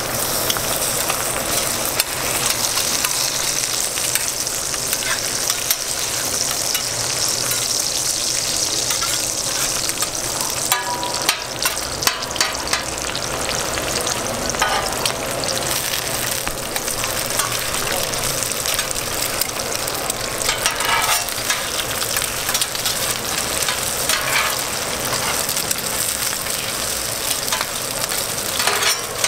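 Fried eggs and burger patties sizzling steadily on a hot flat-top steel griddle. Metal spatulas click and scrape against the griddle plate now and then.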